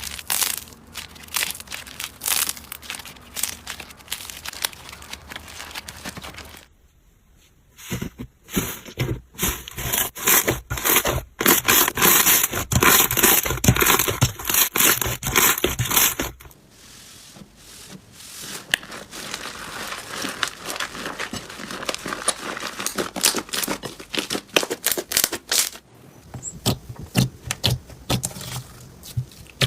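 Hands squeezing and pressing slime, giving rapid crackling and popping clicks, across a few separate clips. The middle stretch, from about seven to sixteen seconds in, is the loudest.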